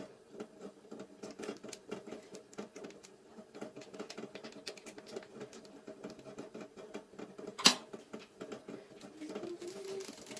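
Plastic seasoning sachets crinkling and crackling as they are handled and torn open, with many small crackles and one sharp snap about three-quarters of the way through.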